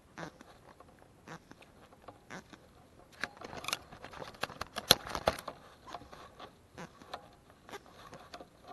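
Fly line being stripped in by hand along a fly rod: irregular soft clicks and rustles, busiest in a flurry around the middle.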